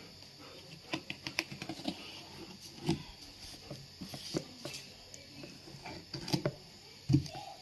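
Wristwatch box and packaging handled while being unboxed: irregular light clicks and taps with faint rustling, with a few louder knocks about three seconds in and again near the end.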